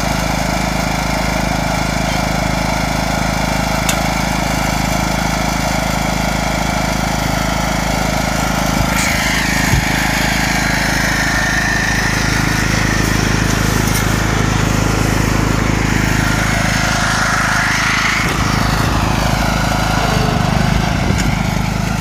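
Riding lawn tractor's small engine running steadily, with no change in speed. A wavering hiss comes in from about nine seconds in.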